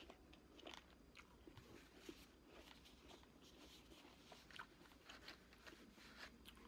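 Faint, close chewing of crisp fruit, with irregular small crunches and mouth sounds.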